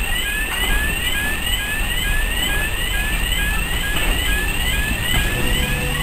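Heritage railway coaches rolling slowly past with a steady low rumble and occasional wheel clicks. Over them, an electronic alarm repeats a short rising yelp about twice a second.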